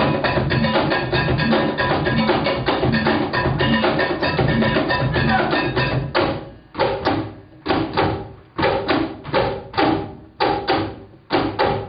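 Afro-Peruvian percussion music led by cajón, dense and continuous at first. From about six seconds in it thins to single sharp wooden strikes, about two or three a second with short gaps between.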